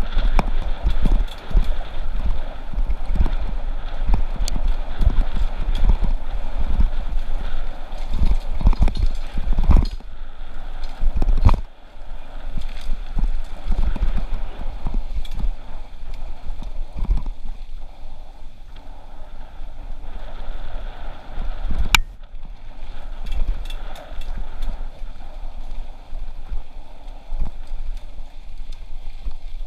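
Mountain bike ridden fast over a dirt singletrack, heard from the rider's camera. Wind buffets the microphone with a steady rumble, and frequent knocks and rattles come from the bike jolting over the trail. One sharp click comes about three quarters of the way through.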